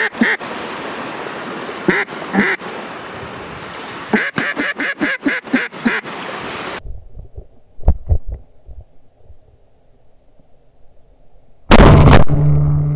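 Mallard quacks over wind and lapping waves: a few single quacks, then a fast run of about nine quacks about four seconds in. Near the end, one very loud shotgun shot from close by, with a long ringing tail that fades out.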